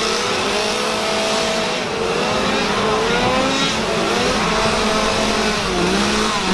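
Several gas chainsaws revving up and down at once, over the noise of a crowd.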